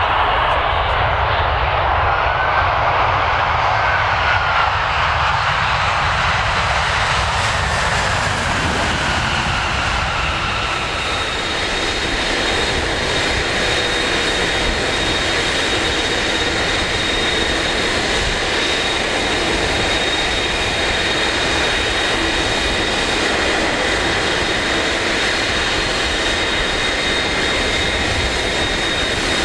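Airbus A340's four jet engines as it touches down, a broad rushing noise; about ten seconds in this gives way to a close turbofan engine running, a steady whine with high whistling tones over a low rumble.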